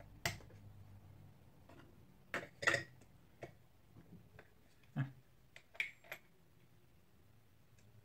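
A handful of light, separate clicks and taps as small metal parts, spacer washers and the fan impeller, are handled and fitted onto a vacuum cleaner motor's shaft.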